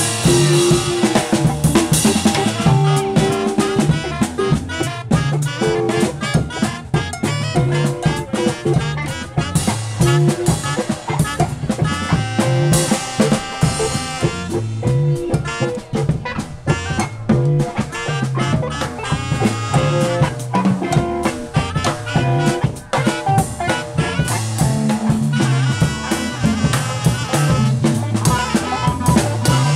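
Live band playing: a saxophone over drum kit, bass guitar and guitar, with a steady drum beat throughout.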